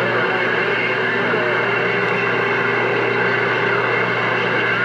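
CB radio on channel 6 receiving a weak, distant station: a steady rush of static with a fixed hum and whine comes on abruptly as the squelch opens on the other station's carrier, with a faint garbled voice buried in the noise.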